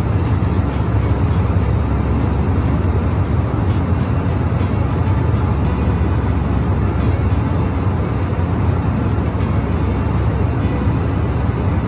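Steady rumble of an airliner's engines and airflow heard inside the passenger cabin in flight.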